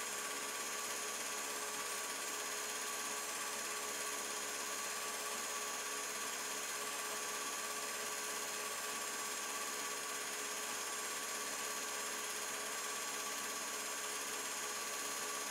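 Film projector running: a steady whirring hum with a faint high whine, unchanging throughout.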